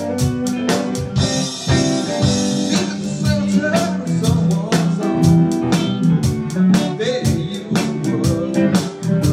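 Live band music: guitar over drums keeping a steady beat of about four hits a second, in a blues-soul style.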